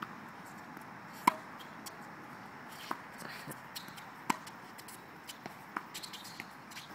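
Tennis rally on a hard court: rackets striking the ball with sharp pops about a second and a half apart, the loudest about a second in. Fainter ticks follow near the end.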